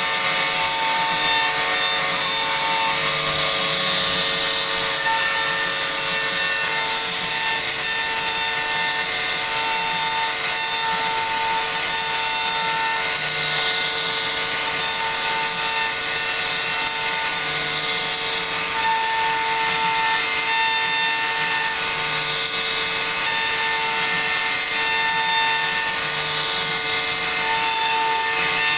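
CNC router spindle running steadily with its bit cutting into a solid wood door panel: a constant whine over a loud hiss of cutting. A higher tone switches on and off every second or so.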